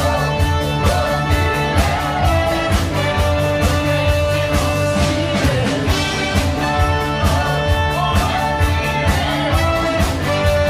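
A band playing rock music with guitar over a steady beat.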